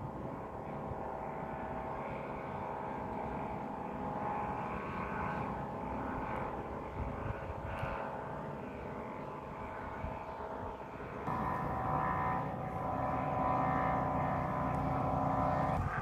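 Set of Vietnamese kite flutes (sáo diều) hung under a kite flying high in strong wind, droning several steady tones at once. The drone swells louder about eleven seconds in.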